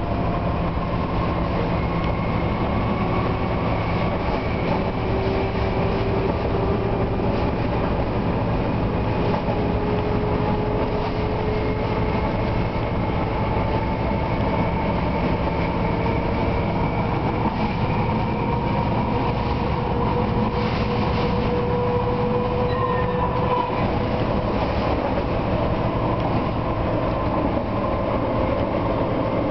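Class 750.7 diesel-electric locomotive with its Caterpillar diesel engine, running under way. A steady engine drone over wheel-on-rail running noise, with whining tones that slowly drift up and down in pitch.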